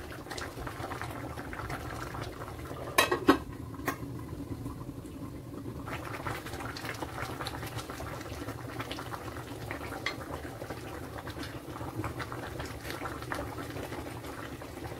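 Pot of fish soup bubbling at a steady boil, with a wooden spatula scraping and tapping in the pot as pieces are lifted out. A few sharp knocks about three seconds in.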